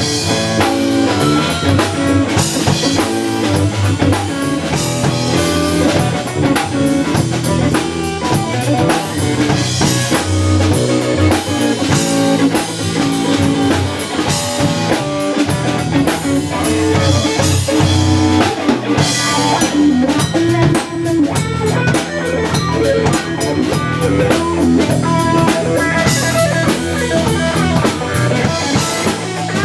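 A live blues-rock band playing an instrumental passage: electric guitar over bass and a drum kit keeping a steady beat.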